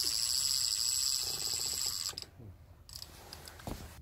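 Spinning fishing reel being cranked, a fast whirring and ratchet-like clicking for about two seconds that then stops.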